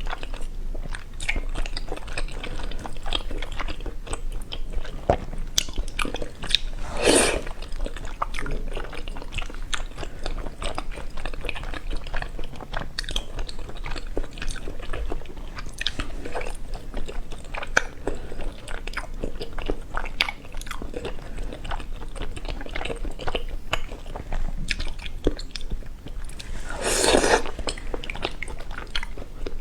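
Close-miked eating: chewing and crunchy bites with many small clicks of mouth and food, and two louder bites or slurps about 7 and 27 seconds in.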